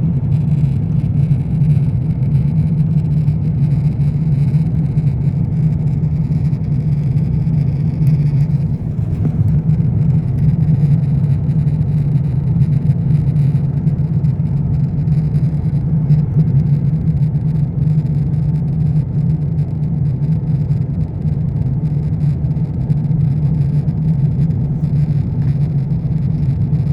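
Airbus A350-900 cabin noise in flight: a steady, even drone of the jet engines and airflow heard from inside the passenger cabin, strongest in a low hum.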